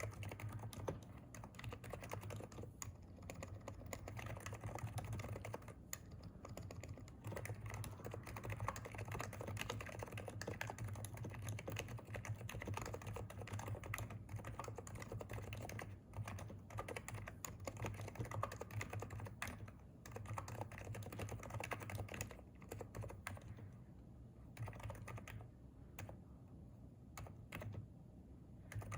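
Continuous fast typing on a Hansung electrostatic capacitive (contactless) keyboard, a dense run of keystroke clicks that thins into a couple of short pauses in the last few seconds. A steady low hum runs underneath.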